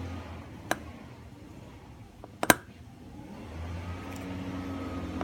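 Car's right front wheel turning with a low hum, broken by a few sharp clicks from the centre of the wheel, a noise that persists with nothing touching the wheel. The hum fades about a second in and comes back after about three and a half seconds.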